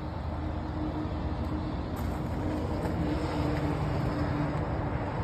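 A steady engine hum, with an even low rumble and a held tone that does not rise or fall.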